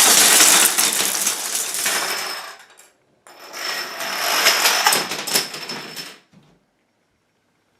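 Dominoes toppling in two long runs: a dense, fast clatter of many tiles striking one another, with a brief break between the runs, then stopping about a second and a half before the end.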